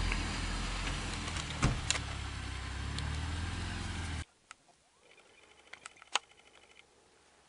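UAZ off-road vehicle's engine running as it drives along a rough dirt track, with a couple of sharp knocks about two seconds in. The sound cuts off abruptly about four seconds in, leaving only faint quiet with a few small clicks.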